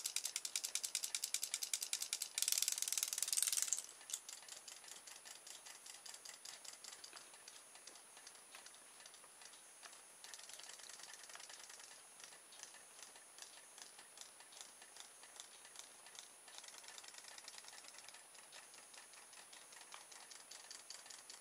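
Small battery motor of a RoboFish robot toy fish running, a rapid, even ticking rattle as it wags the tail. Loud for the first few seconds, with a louder noisy stretch about two seconds in, then quieter and muffled once the fish swims in the bowl of water.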